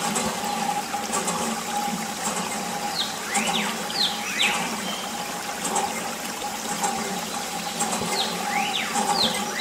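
A thin stream of water from a mini water pump's hose splashes and trickles onto a plastic toy car, over a small pump motor's steady hum. Short whistling chirps that glide up and down come in two groups, a few seconds in and again near the end.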